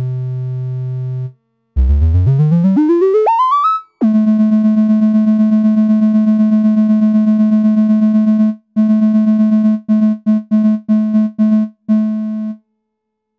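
Analog synthesizer notes: a VCO's triangle wave passed through a CA3080 OTA voltage-controlled amplifier, each note's loudness shaped by an ADSR envelope. A low held note is followed by a fast run of short notes climbing steeply in pitch, then a long higher note with a rapid ripple in loudness, then a string of short repeated notes with gaps, the last one fading out.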